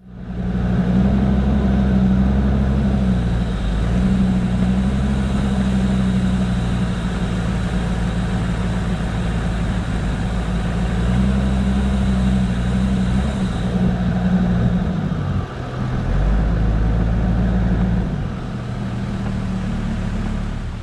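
Toyota Land Cruiser HZJ73's 1HZ inline-six diesel engine running at low revs while crawling along a dirt trail, its note stepping up and down several times as the throttle changes, with a brief dip about fifteen seconds in.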